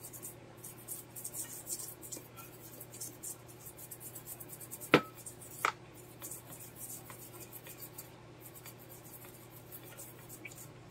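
Small brush scrubbing the circuit board of a car's electric power steering module in quick, short dry strokes. Two sharp clicks come about five seconds in, with a steady low hum underneath.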